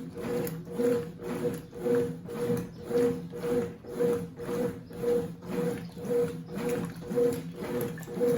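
Consul CWC08 top-load washing machine agitating a load of water and bedding: the motor whirs and the water swishes in short strokes that repeat steadily, about two a second.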